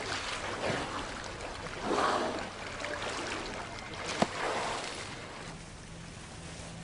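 Killer whales blowing as they surface: several short, noisy breaths with water washing around them, and a sharp click about four seconds in. Near the end this gives way to the low steady hum of a motor boat's engine.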